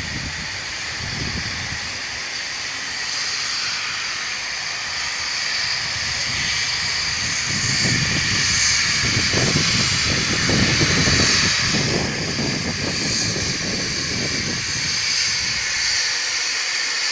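Steam locomotive 5917, a 59 class 2-8-2, working away from a standstill: a steady hiss of steam with irregular low exhaust beats, louder around the middle.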